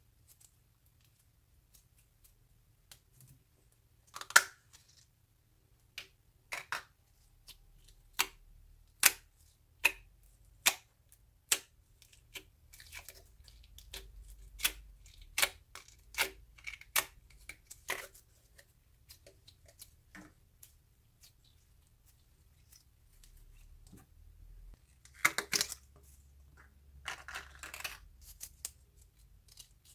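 Slime being squeezed and pressed by hand, giving a run of sharp, sticky pops and clicks about once a second, then denser crackling near the end.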